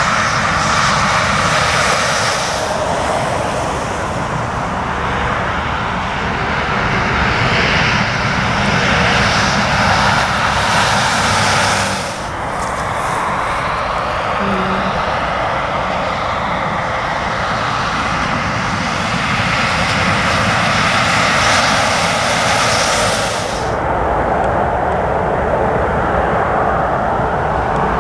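Heavy lorries, Volvo FH and Scania tractor units, driving past on a main road: a steady roar of diesel engines and tyre noise on wet tarmac. The sound changes abruptly about twelve seconds in and again near the end as the footage cuts to another truck.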